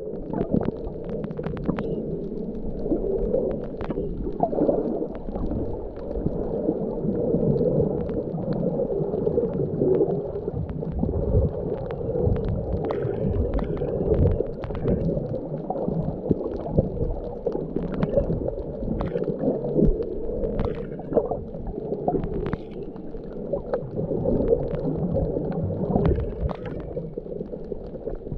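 Muffled underwater noise picked up by a GoPro in its waterproof housing while snorkeling: a dull, steady low rumble of moving water, with scattered short clicks and gurgles.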